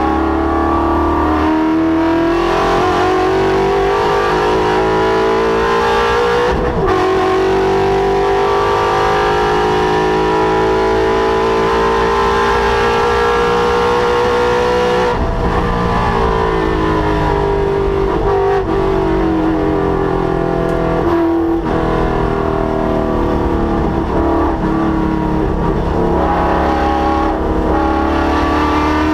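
Ford Mustang's Coyote 5.0 V8 running hard on track. The note breaks briefly at a gear change, climbs steadily through a long pull, falls away as the car slows with more brief breaks, then climbs again near the end.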